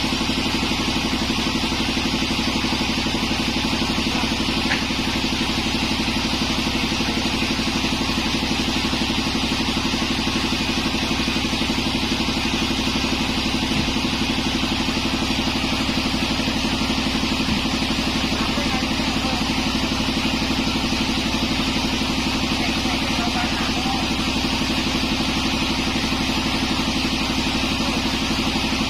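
Engine-driven homemade sawmill running steadily: a constant low engine hum with a steady higher hiss over it, with no change in speed or load.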